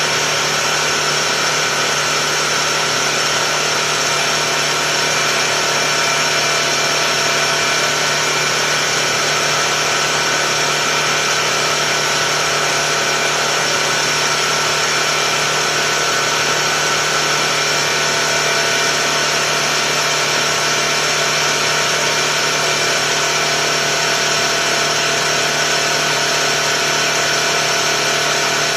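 Tuxing four-stage high-pressure air compressor running steadily while it fills an air tank: a constant motor hum with several steady whining tones that do not change in pitch or level.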